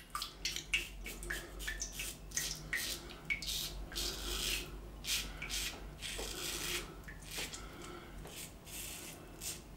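Double-edge safety razor (Wilkinson Sword New TTO with a Dorco Titan blade) scraping through shaving lather and stubble on the neck and chin in many short strokes, a few a second.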